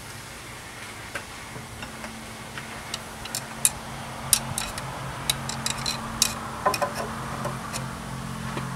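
Irregular metallic clicks and clinks, sparse at first and coming thick and fast in the middle, as a replacement alternator is worked into a tight mounting in a car's engine bay. A steady low hum runs underneath.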